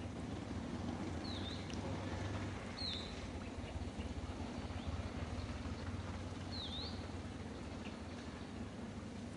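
Three short, high-pitched animal chirps, each dipping and then rising in pitch, heard over a steady low outdoor rumble.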